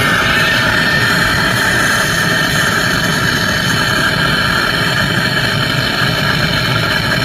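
Torch flame running with a steady rushing hiss while heating a rusted, seized bolt.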